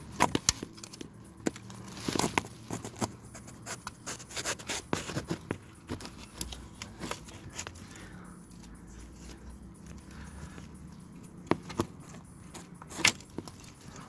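Sharp clicks, taps and light scraping of a screwdriver prying the plastic plug off a crankshaft position sensor, and of the unplugged connector being handled. The loudest clicks come in the first second and twice near the end.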